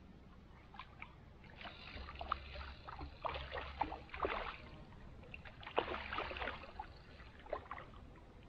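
Shallow water splashing and sloshing in irregular bursts at the landing net at the river's edge, heaviest through the middle few seconds.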